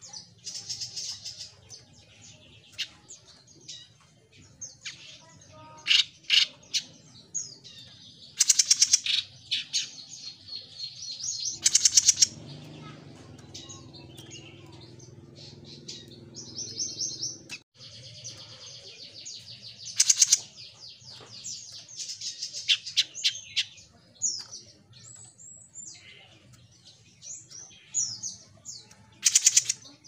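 A caged 'jenggot mini' songbird in full song: rapid, varied high chirps and trills. The song comes in runs of quick notes with several loud bursts.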